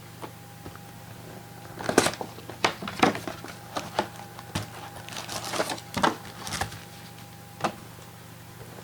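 Trading-card boxes and packs being handled: a run of sharp clicks, taps and crinkles of card packaging for several seconds, over a faint steady hum.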